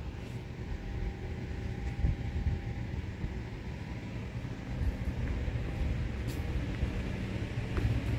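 Low, steady rumble of an underground metro station, slowly growing louder, with a fainter hiss above it.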